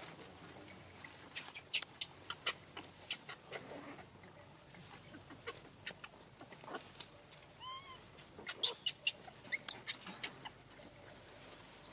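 Irregular sharp clicks and crackles, with a short chirping animal call, rising then falling, about eight seconds in.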